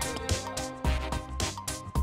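Background music with a steady beat. Just before the end, a short sharp thud as a golf club strikes the sand in a bunker shot.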